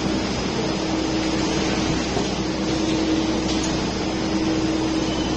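Mini noodle machine running steadily, a constant mechanical whir with a steady hum.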